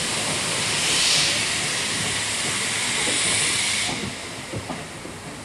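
Loud steam hiss from a GWR 1400 class 0-4-2T tank engine pulling away, typical of open cylinder drain cocks. It swells about a second in and cuts off suddenly about four seconds in, leaving a few faint knocks from the departing train.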